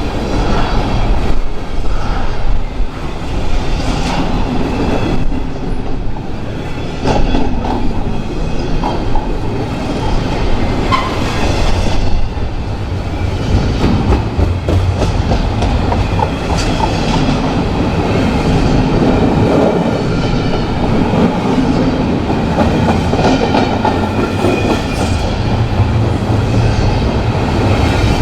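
Train cars rolling past on the rails, wheels clacking over the rail joints, with a faint high wheel squeal at times.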